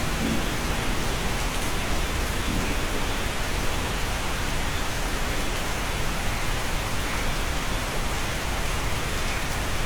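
Steady rain heard from inside a cabin: an even, unbroken hiss.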